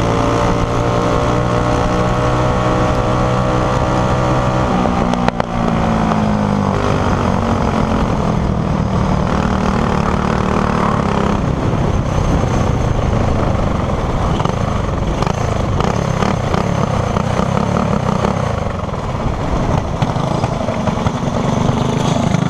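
Racing kart engine heard from the driver's seat, with wind noise. It runs hard at high revs and climbs slightly, then is cut back about five seconds in, and the engine note falls as the kart slows. It keeps running at lower, rougher revs to the end.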